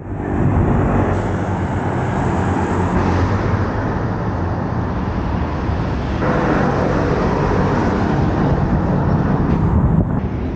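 Steady road-traffic noise from cars running along the bridge's traffic lanes.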